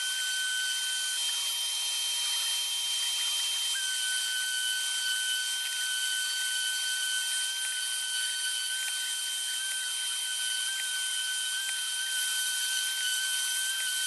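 A small high-speed power tool motor running steadily with a high whine and hiss. Its lower whine drops out for a few seconds about a second in, then comes back.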